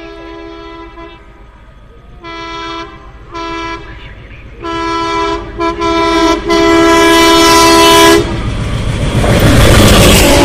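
WDM-3D diesel-electric locomotive's horn sounding in a series of blasts as the express runs through the station at speed: a blast ending about a second in, two short toots, then longer, louder blasts, the last ending about eight seconds in. The locomotive and its coaches then rush past, with wheels clattering over the rail joints.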